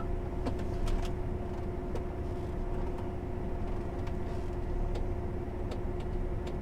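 Combine harvester engine running steadily at rest, a low rumble with a steady hum. A few faint ticks come through.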